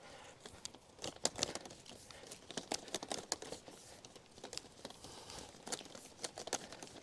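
25mm blue plastic water pipe being worked into an underground duct, giving irregular crinkling, scraping clicks as it rubs against the duct.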